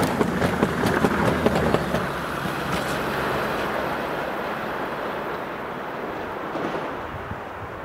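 Tail coaches of a Talgo-built Strizh express passenger train passing at speed, their wheels clicking rapidly over the rail joints. About two seconds in the clicking stops, and the rolling noise fades as the train draws away.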